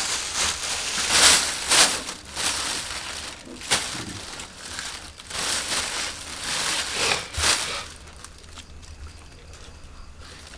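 Plastic bag rustling and crinkling in irregular bursts as pieces of hornet nest comb are handled and put into it. It goes quieter for the last couple of seconds.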